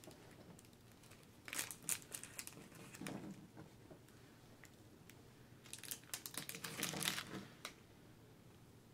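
Fairly faint crinkling of plastic packaging as it is handled. It comes in a short burst about a second and a half in, another around three seconds, and a longer stretch in the second half.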